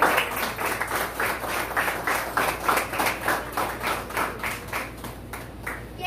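Audience clapping together in a steady rhythm, about three claps a second, fading near the end.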